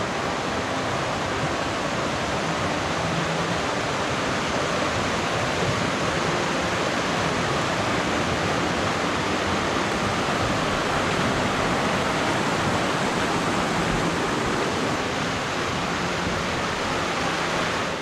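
Mountain stream water rushing over rocks: a steady, even sound of flowing water.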